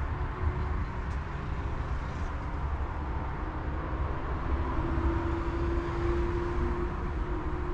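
Steady low rumble of vehicle engines, with a steady droning tone coming up about halfway through. A light clink of cutlery on a plate about a second in.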